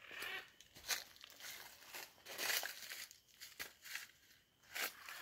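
Faint crunching and crackling of dry fallen leaves underfoot, in a few irregular steps.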